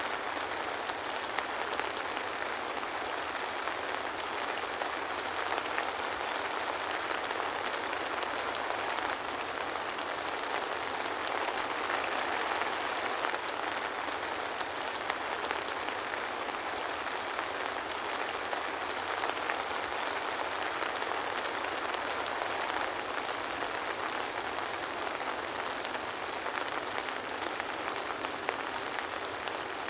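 Steady soft rain falling, an even hiss of many drops with no thunder.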